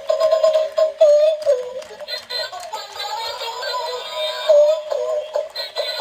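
Electronic toy playing a tinny synthesized song with a computer-made singing voice through its small speaker.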